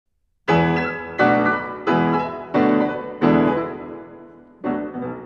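Background piano music: silence, then about half a second in a series of struck chords, each left to ring and fade. Five chords come evenly about two-thirds of a second apart, and a softer sixth follows after a longer pause.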